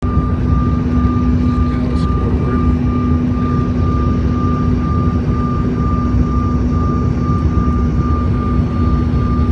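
Aircraft engines running steadily, heard inside the passenger cabin: a constant loud rushing noise with a low hum and a higher whine held throughout.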